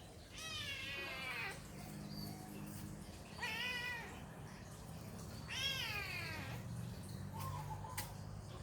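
A cat meowing three times, each a drawn-out call a second or less long, the last one sliding down in pitch. A single sharp click near the end, over a steady low hum.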